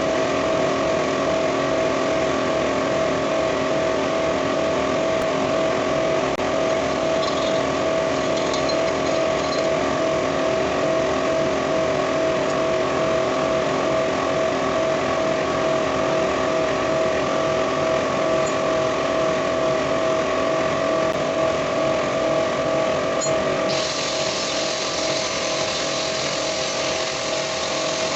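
A motor-driven machine running steadily with a strong hum, and a hiss joining it near the end.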